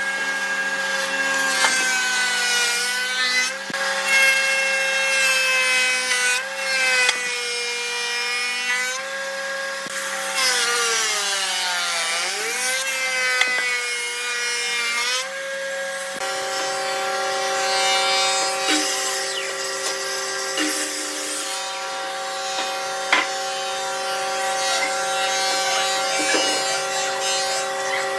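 Thickness planer running with a steady machine whine as a thick softwood board is fed through its cutterhead. For several seconds in the middle the pitch sags and wavers as the motor takes the load of the cut, then it settles back to a steady whine.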